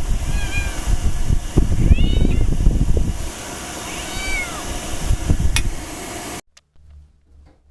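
Ragdoll cat meowing three times, short rising-then-falling calls, over heavy low rumbling and handling noise. A sharp click comes about five and a half seconds in, and the sound cuts off abruptly soon after.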